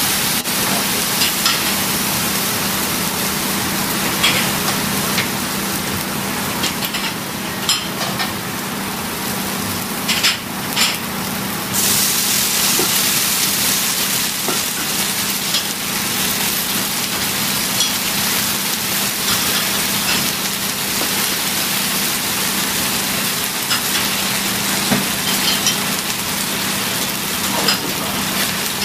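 Yakisoba noodles with cabbage and pork sizzling on a hot steel teppan griddle: a steady frying hiss with scattered sharp clicks of a metal spatula. The sizzle steps up about twelve seconds in as sauce is poured onto the noodles.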